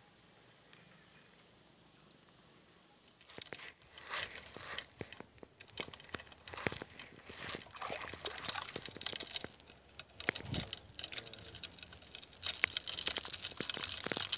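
Close handling noise of fishing tackle: after a quiet start, an irregular run of sharp clicks, taps and metallic clinks begins about three seconds in and carries on, over a faint steady high-pitched hiss.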